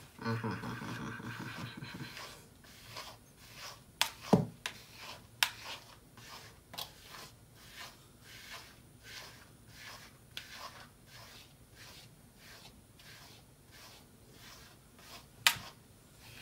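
Pet grooming brush stroked repeatedly through a Persian cat's long fur, a steady rhythm of short brushing strokes about twice a second, with a few sharper clicks among them.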